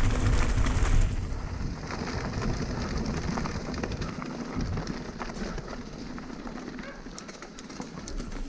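Mountain bike rolling along a loose gravel and dirt path, the tyres crunching on the surface and the bike rattling with many small clicks. Wind rumbles on the bike-mounted camera's microphone, heaviest in the first second or so.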